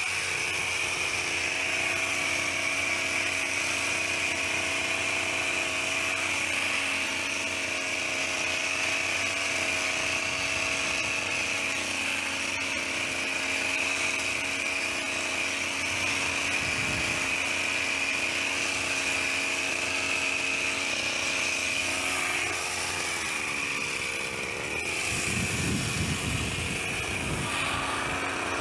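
Petrol hedge trimmer's small engine running steadily at high speed, its pitch easing briefly and picking back up a few seconds before the end.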